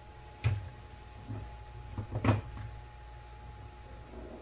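Kitchen clatter from cookware and utensils being handled: two sharp knocks, about half a second and two seconds in, with a few lighter taps between, over a faint steady hum.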